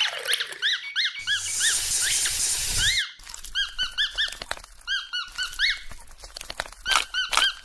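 A toy fish squeaking over and over in short chirps that rise and fall in pitch. A hissing rush joins in about a second in and lasts nearly two seconds.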